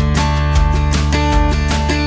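Background music led by strummed guitar with a steady beat.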